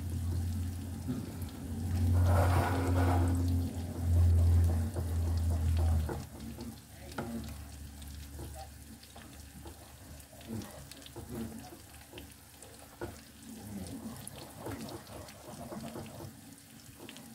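Wooden spoon stirring scrambled eggs in a stainless-steel saucepan, with light scraping and tapping against the pan. A loud low hum runs through the first six seconds and then stops, with a brief hiss about two seconds in.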